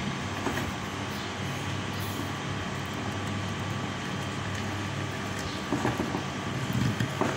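A steady low mechanical hum, with a few light knocks about six to seven seconds in.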